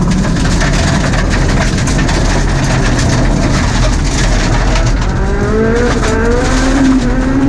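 Mitsubishi Mirage Cyborg RS rally car's MIVEC four-cylinder engine heard from inside the cabin at speed on gravel, with steady road and gravel noise under it. About five seconds in, the engine note climbs as the car accelerates.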